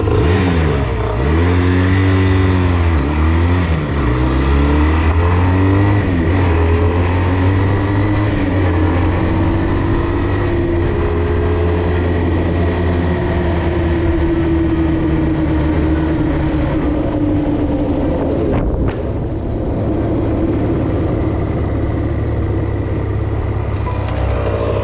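Barossa 250 quad's engine revving up and dropping back through the gears as it pulls away, then running at a steady cruising speed, with a brief drop in revs as the throttle is eased about three-quarters of the way through.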